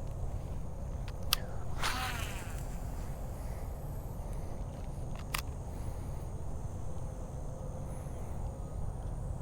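Outdoor ambience: a steady high insect drone over a low rumble. Two sharp clicks come about a second and five seconds in, and a short raspy, falling sound comes about two seconds in.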